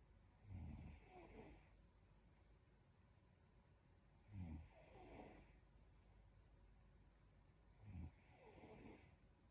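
A sleeping young woman snoring softly, three snores about every three and a half seconds, each a short low snore followed by a softer breath out.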